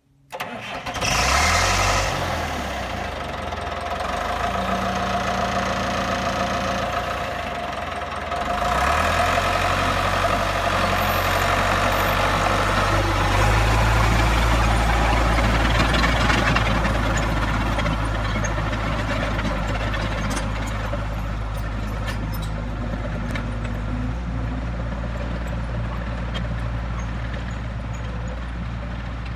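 1980 Caterpillar D3 bulldozer's diesel engine running, revving up about a second in and again at about eight seconds, then holding steady under load.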